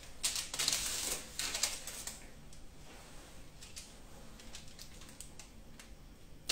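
Crinkling rustle of a disposable plastic piping bag being handled and squeezed for about two seconds, then a few faint light clicks and taps as marshmallow is piped onto parchment.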